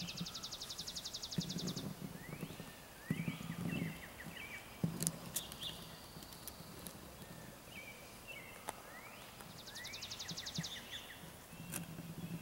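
A small songbird singing twice, each song a few quick sliding notes and a fast, even trill, with short low rumbles and a sharp click between the songs.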